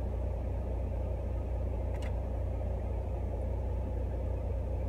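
Semi truck idling, heard from inside the sleeper cab as a steady low rumble, with one faint click about two seconds in.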